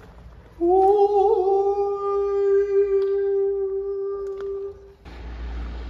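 A person humming one long, steady note for about four seconds, wavering slightly at the start. It ends abruptly and gives way to a steady rushing noise with a low rumble.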